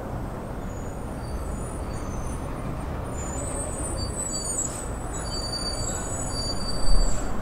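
Steady traffic and forecourt rumble at a fuel station, with faint high-pitched squeals from about halfway in and a short low thump near the end.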